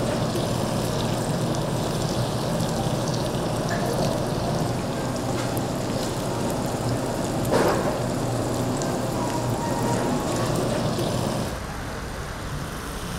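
Pork sizzling on a wire grill rack over charcoal: a steady hiss with scattered small crackles and clicks.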